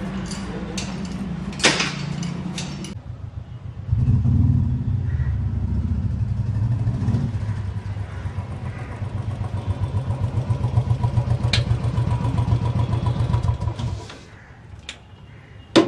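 Royal Enfield motorcycle engine running with a steady low beat, starting about four seconds in and stopping near the end, after a few light clicks.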